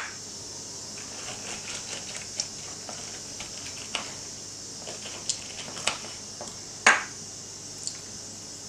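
Lemon halves twisted and pressed on a small plastic hand citrus juicer, with scattered light clicks and knocks of plastic and fruit against the counter, the loudest about seven seconds in, over a steady faint hiss.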